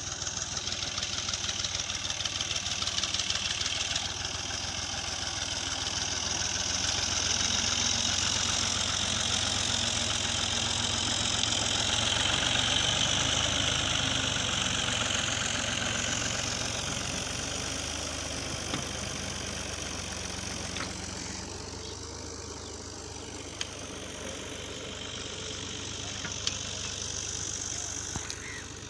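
New Holland farm tractor's diesel engine running as it hauls a loaded trolley past. It grows louder to a peak about halfway through, then fades as the tractor moves away.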